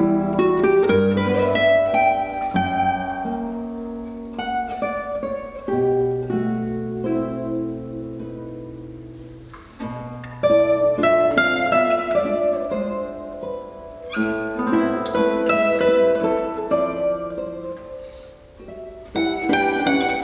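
Two nylon-string classical guitars playing together live, plucked melody over bass notes. The music thins out and fades about halfway through, then comes back with a loud strong entry, and does the same again near the end.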